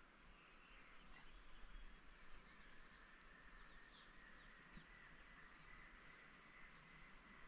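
Near silence, with faint, quick, high chirps of small birds that are busiest in the first couple of seconds. A thin, steady high tone runs from a few seconds in until near the end.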